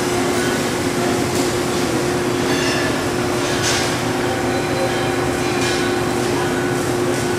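Metal lathe running with a steady hum, with a few brief hissy scrapes over it.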